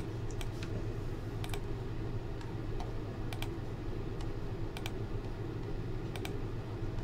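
Computer mouse clicking: sharp clicks every second or so, often in quick pairs, as a web page's randomize button is clicked over and over. A steady low hum runs underneath.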